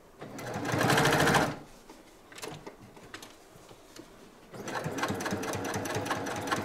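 Sewing machine stitching a seam in the fabric binding, running in two bursts of rapid, even needle strokes. The first burst lasts just over a second; the second starts about four and a half seconds in and runs on.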